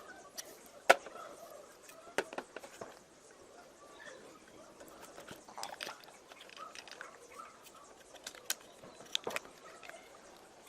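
Scattered clicks and light taps of small hair-clipper parts being handled, with one sharp click about a second in.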